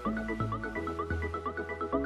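Background music: an electronic tune of quick, evenly repeated notes over a changing bass line.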